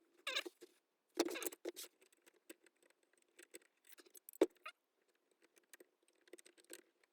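Small clicks, scrapes and rattles of an old hand plane's metal parts being handled and fitted back together, with one sharp knock about four seconds in.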